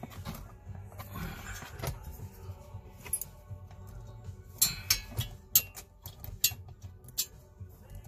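Sharp metallic clicks and knocks of hand tools and parts being worked in a car's center console, loudest in a cluster of clinks about five to seven seconds in.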